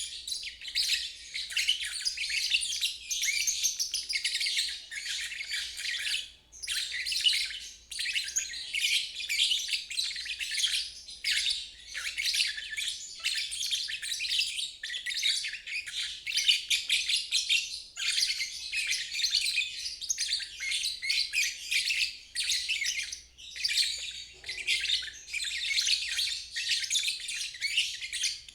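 Lovebird singing the long, rapid 'ngeriwik' chatter, a dense high-pitched twittering that runs on with only a few brief pauses.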